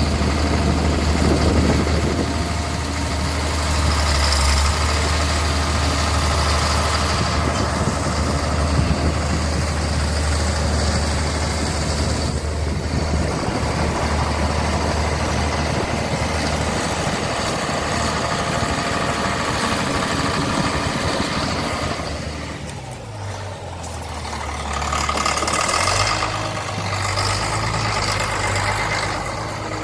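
Heavy diesel engine of a road-repair machine running steadily. Its note sinks and the sound briefly quietens about three-quarters of the way in, then it picks up again at a slightly different pitch.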